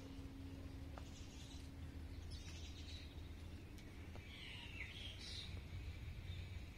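Faint bird chirps: a few short, high calls with quick falling glides, about two and a half seconds in and again around five seconds, over a steady low rumble.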